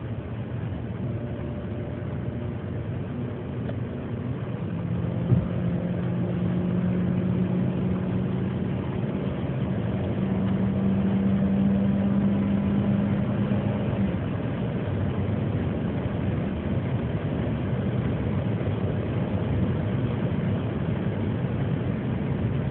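Toyota car driven hard at high speed on a highway: steady road and wind noise with a low engine hum that grows louder over the first several seconds and drops away a little past halfway. A single sharp knock comes about five seconds in.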